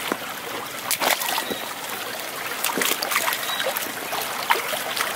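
Cowboy boots wading through shallow creek water: irregular splashes and sloshes of steps over the steady trickle of the flowing creek.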